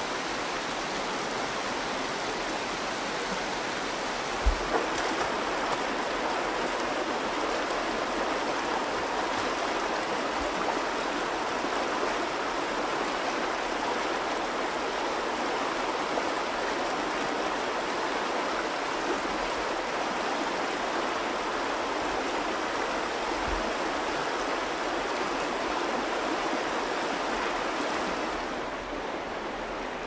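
Shallow river water rushing steadily over rock, with a few soft low thumps, the first and loudest about four seconds in. The rushing drops a little just before the end.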